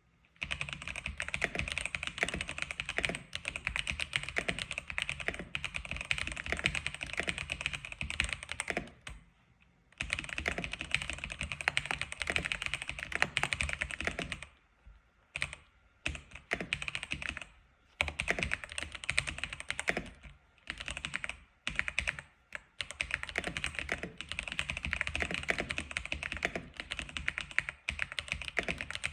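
X87 keyboard being typed on: fast, continuous runs of keystrokes, broken by several short pauses.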